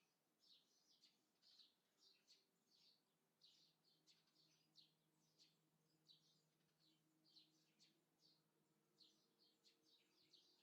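Faint birdsong: short, high chirps repeating a few times a second.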